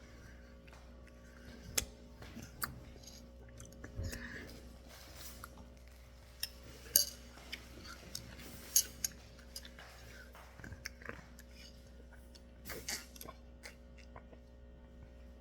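Someone eating a bowl of crunchy cereal: spoon clinking against the bowl and chewing, heard as scattered sharp clicks, a few of them louder.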